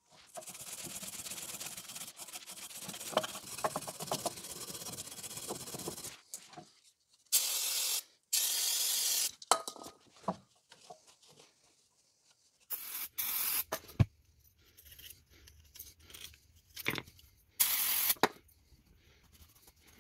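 Wire brush scrubbing a rusty rear brake caliper bracket for about six seconds. After that come several short hissing blasts of aerosol brake cleaner, with a few light knocks and clicks of metal parts being handled between them.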